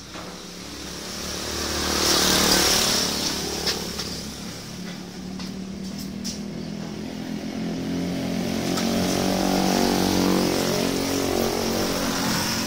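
Motorcycle engine running, growing louder over the first two seconds and then holding, its pitch rising and falling.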